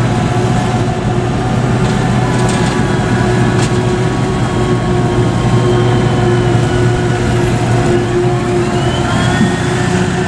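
Diesel engine of a Steyr Terrus CVT tractor running steadily under load as it pulls a full trailer of chopped maize, with a faint whine that rises and falls near the end.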